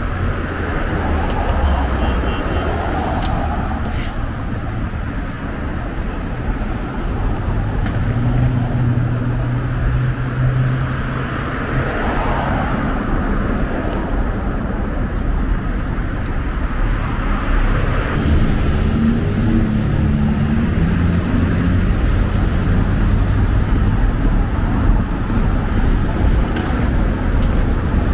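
City street traffic: cars driving past on a multi-lane road, a steady rush of tyres and engines with the hum of single engines rising out of it now and then.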